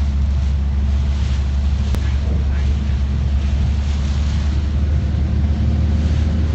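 Steady low rumble of a passenger van driving on a rain-soaked road, engine and wet tyre noise heard from inside the cabin. A single brief click about two seconds in.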